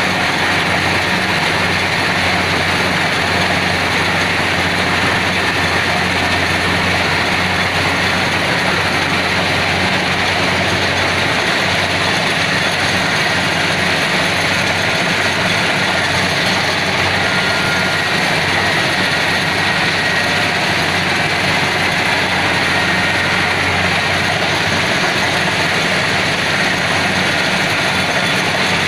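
Kubota DC70PH+ rice combine harvester running steadily: a constant low engine hum under a dense mechanical rush, unchanging throughout.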